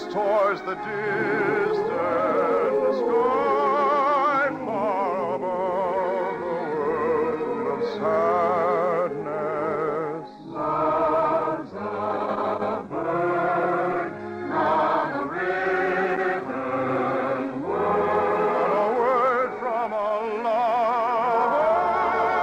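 Operatic singing with a wide vibrato over an orchestral accompaniment, a sustained song in phrases with short breaks between them, from an operetta number.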